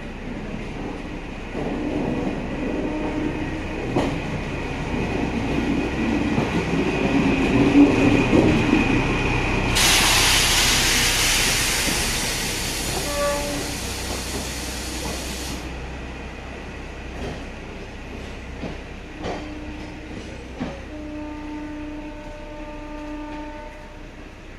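An Indian Railways OHE inspection tower car passes close by on the rails. Its running rumble builds to a peak, then a loud hiss starts suddenly, lasts about six seconds and cuts off. Near the end a horn sounds in several short blasts.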